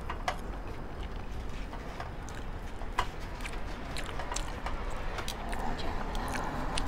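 Close-up eating sounds: black bean noodles being slurped and chewed, with scattered light clicks of chopsticks and tongs against plates and the grill pan.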